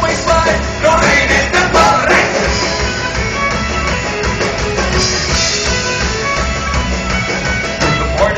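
Live folk-rock band playing loudly: fiddle, acoustic and electric guitars and a drum kit, with a driving beat.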